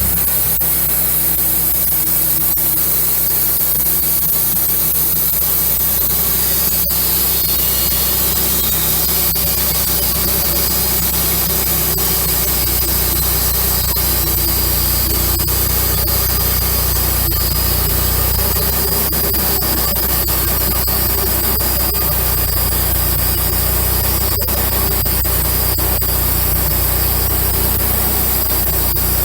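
Wood-Mizer bandsaw mill running steadily as its band blade saws a 4-inch slab through an oak log.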